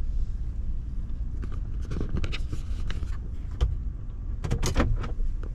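Low, steady rumble inside the cabin of a Chevrolet Tahoe as it rolls slowly, with a few scattered clicks and rustles of handling, most around four and a half seconds in.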